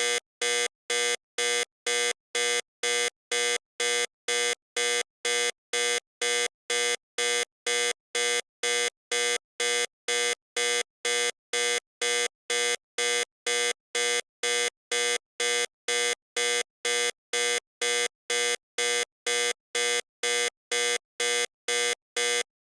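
Electronic warning buzzer beeping on and off in a steady rhythm, about two harsh buzzy beeps a second, and stopping near the end.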